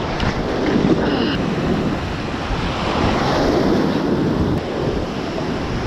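Ocean surf washing up the beach, a steady rushing noise, with wind buffeting the microphone.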